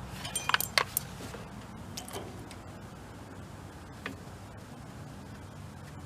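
Sharp metallic clicks and clinks of hand tools and parts being handled while a generator's intake is taken apart: a quick cluster about half a second in, then single clicks near two and four seconds, over a steady low hum.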